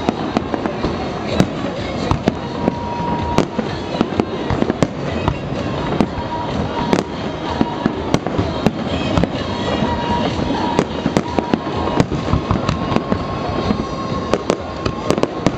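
Aerial fireworks bursting: a dense run of sharp bangs and crackles, several a second at irregular intervals, over a continuous noisy rumble of the display.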